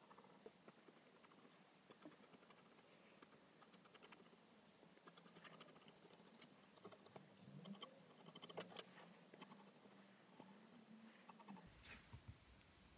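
Faint scratching and small irregular ticks of a graphite pencil drawing lines on a wooden axe handle.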